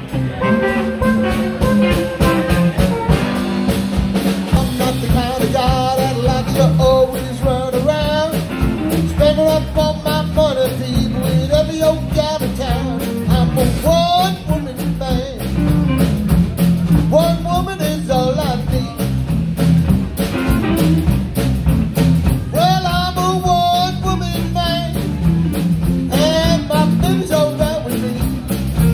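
Live electric blues band playing: electric guitar, bass guitar and drum kit. A harmonica plays near the start, and a man's lead vocal comes in over the band.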